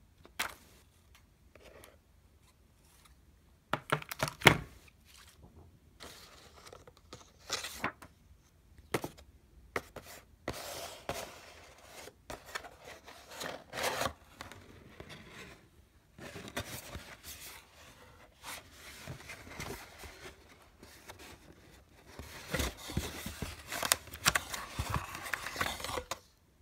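Handling noise from a cardboard box being unpacked: a few sharp knocks, then long stretches of scraping and rustling as the coiled white USB cable is taken out of it.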